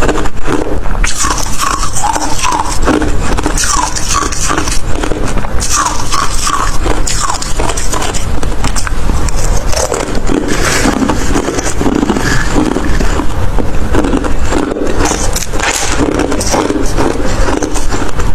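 Hard crushed ice being bitten and crunched, close to the microphone: dense crackling with a run of repeated crunchy bites.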